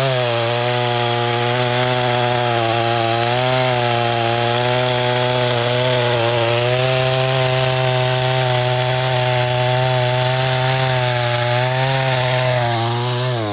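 Stihl chainsaw cutting deep into a large oak log, its engine held under load at a steady pitch with a slight waver. The engine note falls away right at the end as the cut finishes.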